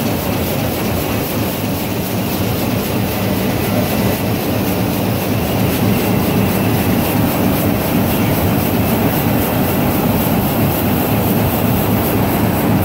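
GTHQ-500*2 two-line plastic bag making machine running at production speed: a loud, steady mechanical rumble and clatter from its rollers, film feed and seal-and-cut heads, with a fast even ticking running through it.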